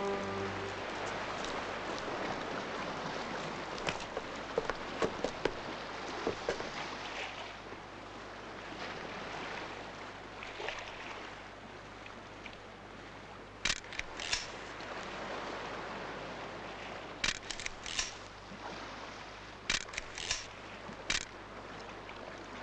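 Quiet harbour ambience: a steady wash of noise, broken by small clusters of sharp clicks and knocks, several in the middle and more near the end.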